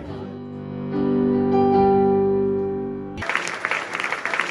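A held keyboard chord swells and fades, then cuts off suddenly about three seconds in and gives way to a room of people applauding.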